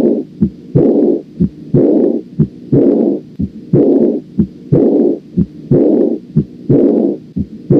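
Heart sounds heard through a stethoscope at about one beat a second, each beat followed by a loud early diastolic decrescendo murmur, a noisy blowing sound that fades away. This murmur is the auscultatory sign of aortic regurgitation, a leaking aortic valve.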